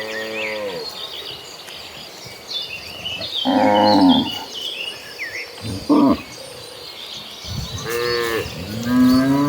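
A herd of cattle mooing: several separate moos from different cows, the loudest about four seconds in and a long one near the end.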